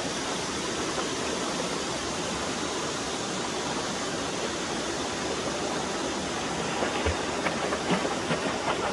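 Mountain stream water rushing steadily over rocks. About seven seconds in, a quick run of short sharp knocks or splashes starts up over it, a few each second.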